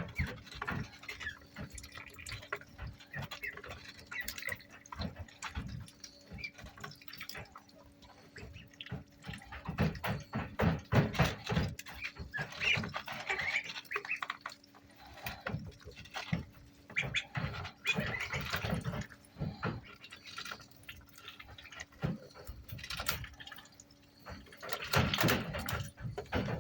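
Indian Runner ducklings peeping in irregular clusters, with water sounds and scattered clicks and knocks as they move about, over a faint steady hum.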